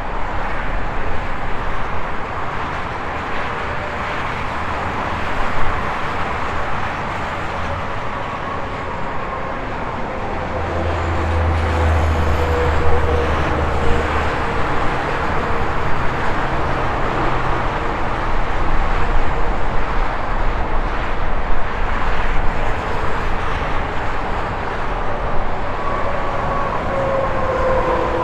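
Highway traffic going by: a continuous rush of tyre noise, with passing vehicles' whines falling in pitch as each goes by. A deep low drone stands out from about ten to fourteen seconds in, and the traffic grows louder in the second half.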